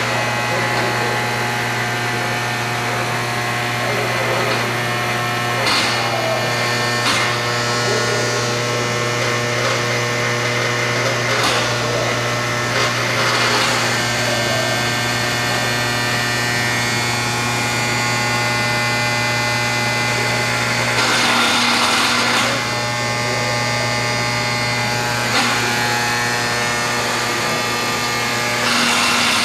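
Hardinge HLV-H toolroom lathe running: a steady motor and spindle hum made of several steady tones. A few short clunks break in, with a longer burst of noise about three quarters of the way through.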